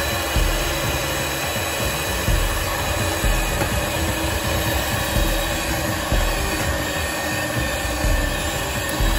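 Electric hand mixer with dough hooks running steadily through crumbly flour dough in a plastic bowl: a steady motor whir with low bumps every second or so.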